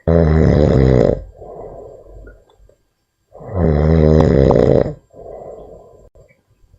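Loud snoring: two long, pitched, rasping snores about three seconds apart, each followed by a softer, breathy sound.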